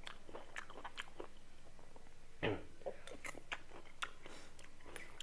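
Close-miked mouth sounds of a person biting and chewing pieces of mango from a rujak: a run of small wet clicks and crunches, with one louder, fuller sound about two and a half seconds in.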